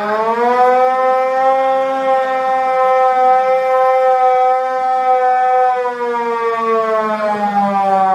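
A siren winding up to a steady wail, holding the note for several seconds, then starting to wind down about six seconds in.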